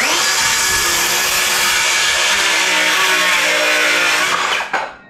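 DeWalt DCS391 20V cordless 6-1/2-inch circular saw starting up and cutting through a wooden board, its motor pitch sagging as the blade bites into the wood. It winds down about four and a half seconds in, once the cut is through.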